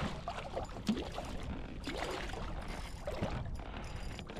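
Water splashing and gurgling as a hooked redfish struggles at the surface beside a kayak.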